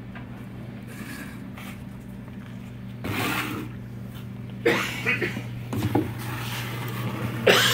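Steady low hum from a Follett nugget-ice machine running. About three seconds in comes a short rustling scrape, then a few knocks and scuffs near the middle as the ice-storage cart is pulled out and handled.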